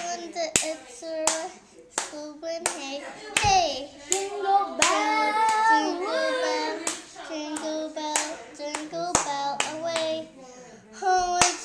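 A child's voice singing wordless held notes, with glides in pitch about halfway through, broken up by frequent sharp hand slaps.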